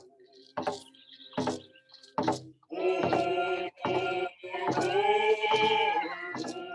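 Ceremonial song: voices singing to a drum, with separate strokes early on and long held sung notes through the second half.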